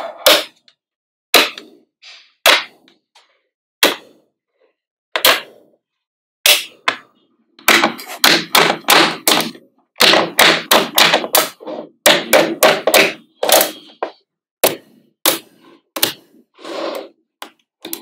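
Magnetic balls clicking and snapping together as they are placed. At first single sharp clicks come about once a second, then a rapid run of clicks follows in the middle, then they thin out again.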